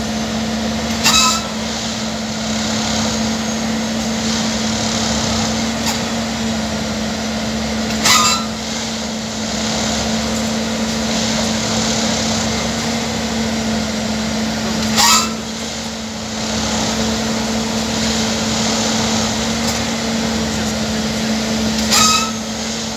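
Plasser & Theurer Unimat 08-4x4/4S track tamping machine running with a steady engine drone and a strong low hum. About every seven seconds there is a short loud burst with a brief falling squeal, four times in all.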